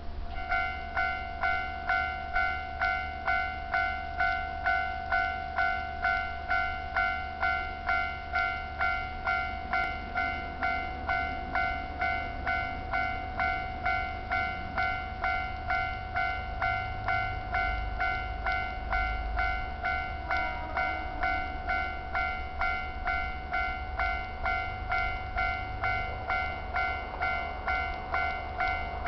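Japanese railway level-crossing warning bell ringing steadily, about one and a half strikes a second, warning of an approaching train. A low rumble runs underneath.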